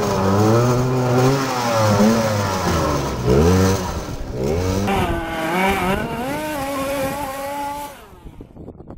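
Small two-stroke petrol engine of a large-scale FG Leopard RC buggy revving up and down as it is driven hard over gravel. The sound drops off sharply about eight seconds in.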